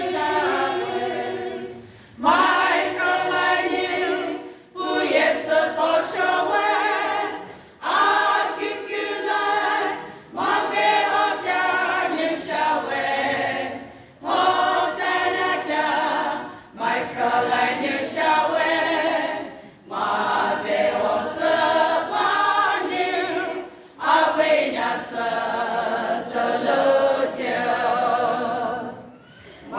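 Women's choir singing unaccompanied from song sheets, in phrases broken by short pauses every few seconds.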